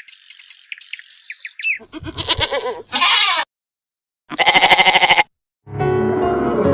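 A run of separate animal calls: high, rapid chirps for the first two seconds, then two pitched calls of about a second each with brief complete silences between them, and a deeper, steady call starting near the end.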